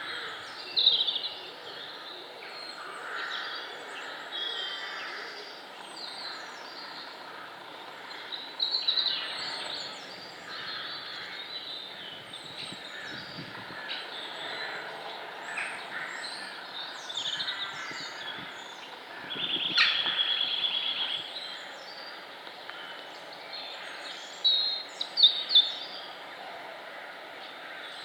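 Several songbirds singing at once, with overlapping chirps and short phrases and a rapid trill about twenty seconds in. A steady background hiss runs underneath.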